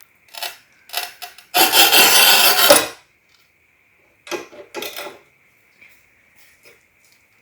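Manual tile cutter scoring a ceramic floor tile: a couple of short knocks, then the cutting wheel scraped along the tile for about a second, then a few sharp clacks a couple of seconds later as the tile is snapped.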